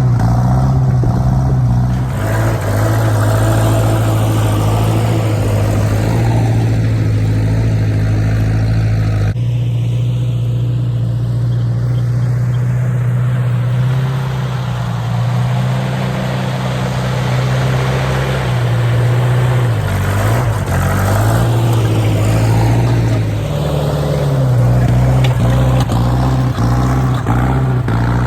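Massey 50 tractor engine running steadily under load while pulling a two-bottom plow through hard, rocky ground. The engine note dips briefly twice, about two-thirds of the way through.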